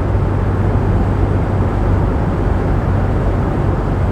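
Steady engine rumble with a strong low hum and a rushing noise over it, cutting off abruptly at the very end.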